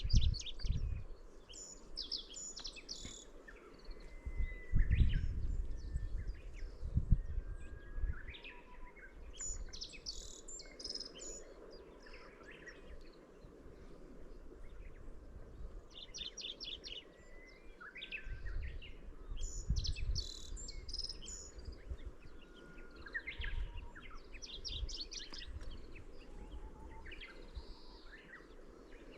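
Middendorff's grasshopper warbler singing: short, rapid song phrases repeated every five or six seconds. Low rumbles break in near the start and again around five and twenty seconds in.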